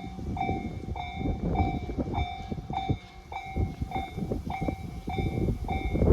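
Japanese railway level-crossing warning bell ringing its electronic ding about every 0.6 seconds, over the rumble and clatter of a passing train.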